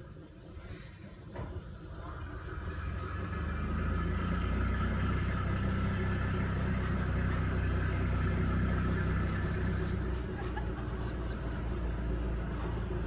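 Diesel locomotive engine running. It builds up over the first few seconds, then holds steady with a low, even note as the locomotive moves off slowly with its short train.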